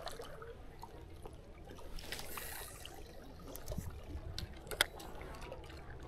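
Faint lake water lapping and trickling at the shoreline, with a few small clicks and taps.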